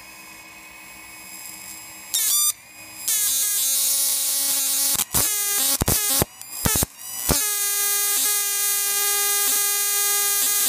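Electrical buzz of a spark discharge from a handheld high-voltage rod, its violet tip arcing to a carved stone obelisk model. A faint hum first; about two seconds in the loud buzz starts, cuts in and out several times, then holds steady for the last few seconds.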